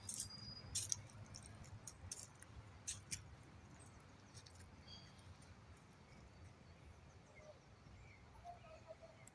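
Faint outdoor ambience with a low background hum. A high, steady whistle cuts off just under a second in, several sharp clicks fall in the first three seconds, and a few faint chirps come later.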